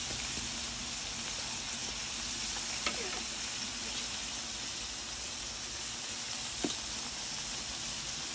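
Smash-burger patties topped with cheese sizzling steadily on a hot Blackstone flat-top griddle, with a couple of faint brief ticks.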